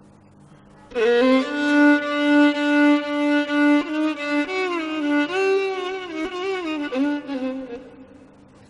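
Background score: a solo violin playing a slow, sad-sounding melody. It enters about a second in on a long held note, then moves through shorter sliding notes and fades out near the end.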